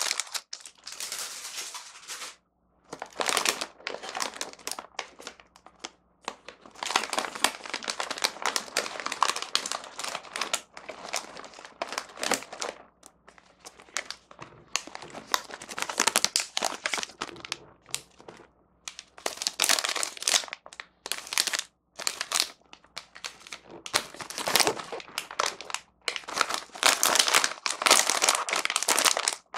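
Plastic packaging crinkling as it is handled: a clear plastic wrapper being pulled off, then printed candy packets and a snack bag. The crinkling comes in irregular bursts with brief pauses between them.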